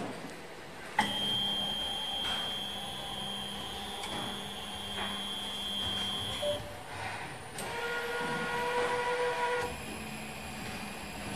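Epson-based A4 UV flatbed printer's motors running: a click about a second in, then a steady high-pitched motor whine for about five seconds, followed by a second, lower-pitched whine for about two seconds.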